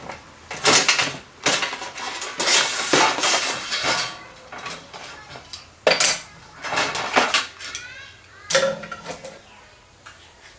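Thin sheet steel being bent over by hand against clamps and the bench: irregular bouts of metallic clanking, rattling and scraping, each lasting a second or so, with short pauses between.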